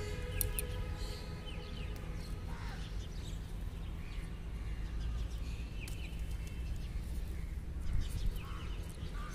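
Outdoor morning birdsong over a steady low rumble: assorted birds chirping and calling, with a long drawn-out call fading out just after the start. Crows begin cawing near the end.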